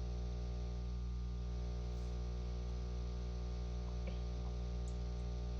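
Steady electrical hum with a buzzy stack of overtones, unchanging throughout, with a couple of faint ticks.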